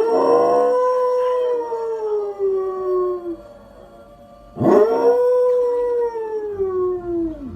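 A dog howling: two long howls, each rising quickly and then sliding slowly down in pitch over about three seconds, with a short pause between them.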